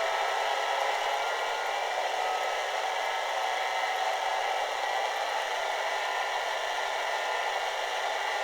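Soundtraxx Tsunami sound decoder in an HO-scale Fairbanks-Morse C-Liner model playing its opposed-piston diesel engine sound. The engine runs steadily, notched up while the unit is held in place by the decoder's brake. It comes through a small speaker, so it sounds thin, with little bass.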